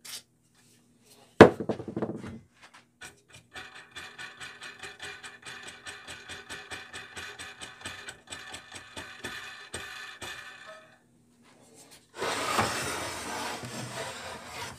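A sharp knock, then about seven seconds of rapid, even ticking as the blade of a Craftsman 10-inch three-wheel bandsaw is worked by hand through its guides. Near the end the saw's wheel cover scrapes and rattles as it is fitted back on.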